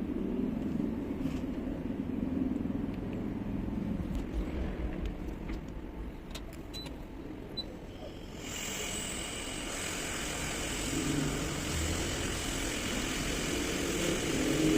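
Steady low mechanical rumble with a few small clicks, joined about eight and a half seconds in by a steady airy hiss that runs on.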